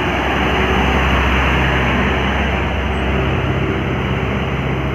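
A heavy road vehicle passing close by: a steady low engine note over loud road noise, loudest about a second in.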